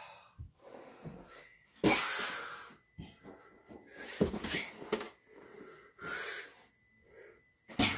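Hard, wheezy breathing and loud exhalations from two people wrestling, with scuffling and body contact; the loudest burst comes about two seconds in, with others around four and six seconds.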